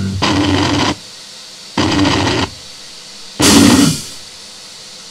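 Harsh noisecore: three short, loud blasts of distorted noise, each under a second long, coming in quick succession. A low steady hiss fills the gaps between them.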